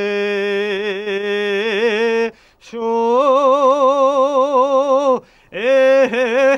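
A single voice singing unaccompanied: long held notes with a wide vibrato and ornamented turns, in three phrases broken by two short breaths.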